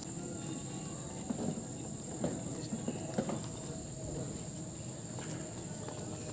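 A steady, high-pitched chorus of insects buzzing without a break, with a few soft knocks beneath it.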